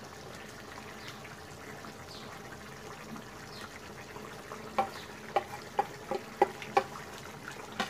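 Prawn curry gravy simmering and sizzling in a pan, with a steady bubbling hiss. About five seconds in, a run of about seven sharp clinks, a metal spoon or spatula knocking against the pan while stirring.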